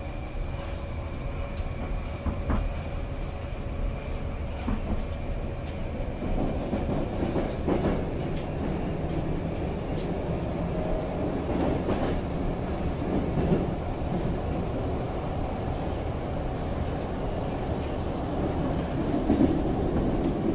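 A Moskva-2020 metro train pulling away from a station and running through the tunnel, heard inside the car: a steady rumble of wheels and running gear with scattered clicks over the rail joints. A steady high tone fades out about six seconds in, and the rumble grows louder from there.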